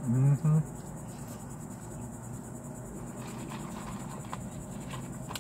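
Steady, high-pitched insect drone, heard faintly inside a car over a low steady hum. A brief murmured voice sounds at the very start, and a few faint clicks come later.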